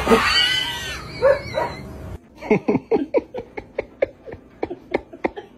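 A dog whining in high, rising-and-falling cries, then after a cut a quick run of short animal calls, each falling in pitch, about three a second.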